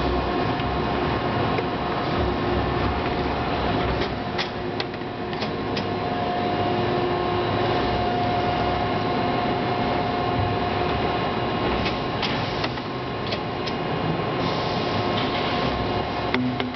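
Spiral paper tube winding machine running steadily: a continuous mechanical running noise with a steady whine over it. A few sharp clicks and knocks come about four to five seconds in, again around twelve to thirteen seconds in, and once near the end.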